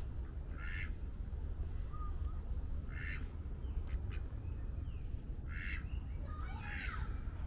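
Ducks quacking: short calls every two to three seconds, with a busier run of calls near the end, over a steady low rumble.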